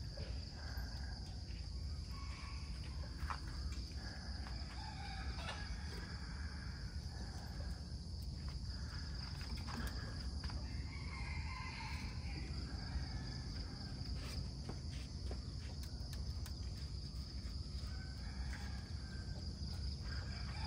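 Farmyard ambience: a steady high insect drone, with a rooster crowing faintly now and then.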